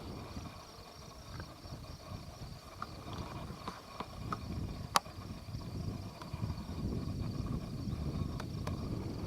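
Wind rumbling on the microphone, with scattered light clicks and knocks and one sharp click about five seconds in.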